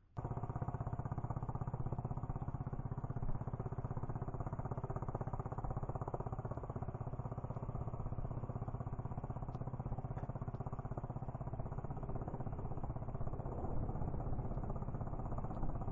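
Small boat's engine running steadily at an even speed, a constant low drone with a fine rapid pulse.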